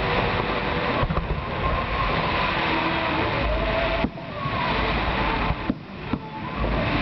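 Fireworks display: a dense, continuous barrage of shell bursts and crackle, with sharp bangs standing out above it. It eases briefly about four seconds in and again near the end.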